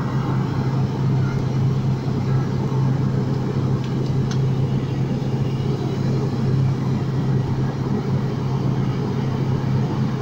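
Cabin drone of a turboprop airliner in flight, heard from a window seat beside the engine: a steady low propeller hum with one constant tone over even engine and airflow noise.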